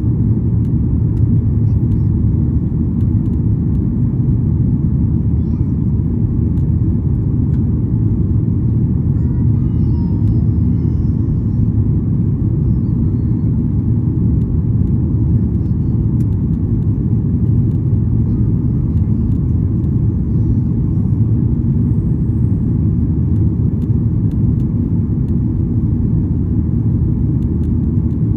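Steady low rumble of a Boeing 737-800's CFM56-7B jet engines and airflow, heard from inside the passenger cabin, holding even throughout.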